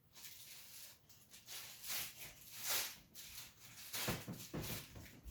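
Rustling and handling noises from unpacking a bo staff, with a few soft knocks about four seconds in.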